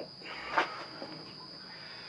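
Steady high-pitched drone of insects, with one short knock a little over half a second in.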